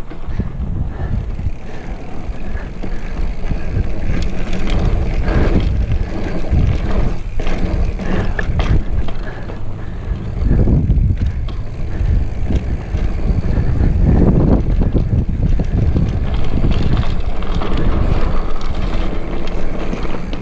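Wind buffeting the microphone of a camera mounted on a mountain bike, over the rattle and knocks of the bike rolling along a dirt and rock trail.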